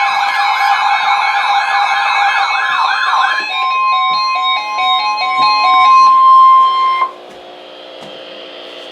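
A fast wailing siren, sweeping up and down about three times a second, gives way about three and a half seconds in to a single steady Emergency Alert System warning tone with a short stepping run of lower notes beneath it. The tone cuts off about seven seconds in, leaving a low steady hum.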